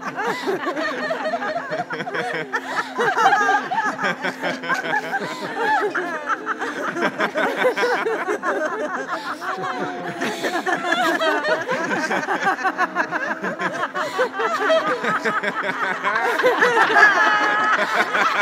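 A group of people laughing together as a deliberate collective laugh, many overlapping chuckles and laughs that grow louder near the end. A steady low tone runs underneath.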